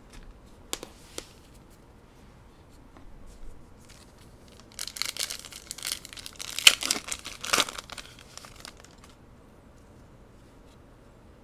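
Foil trading-card booster pack crinkling and tearing as it is handled and ripped open. About four seconds of crackling begin around five seconds in, after a couple of light clicks about a second in.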